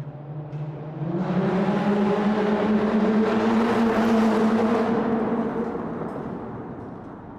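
Car driving through a tunnel. The engine note rises about a second in as it speeds up, with a loud rush of tyre and air noise that swells, holds for a few seconds, then fades toward the end.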